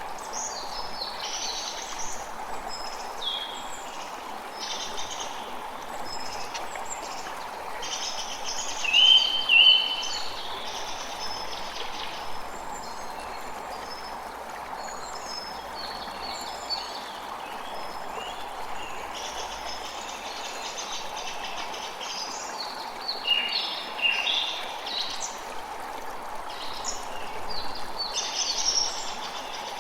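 Forest ambience: a steady rush of flowing water, with small birds calling on and off over it. The loudest are two short, sharp calls about a third of the way in.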